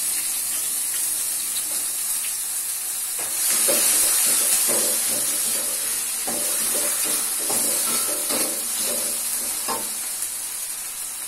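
Ground spice paste, tomato and aromatics sizzling in hot oil in a wok. A metal spatula scrapes and clinks against the wok in repeated strokes as it is stirred, mostly from about three seconds in until near the end.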